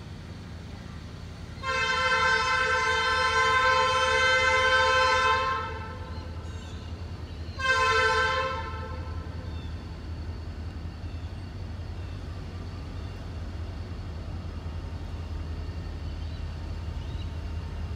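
Diesel locomotive horn on the local freight P64 sounding one long blast of about four seconds, then a short blast a couple of seconds later. A steady low rumble runs underneath.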